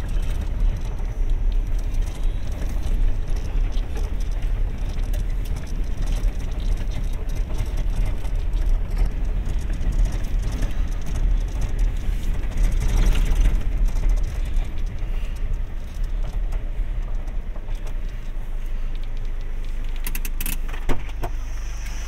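Vehicle driving on an unsealed gravel road, heard from inside the cabin: a heavy low rumble of engine and tyres with rattling. It settles into a smoother, steadier hum near the end as the vehicle slows, with a few sharp clicks about a second before the end.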